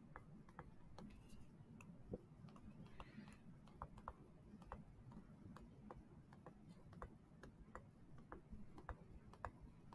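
Faint, irregular taps and clicks of a stylus on a tablet screen while handwriting, about one or two a second.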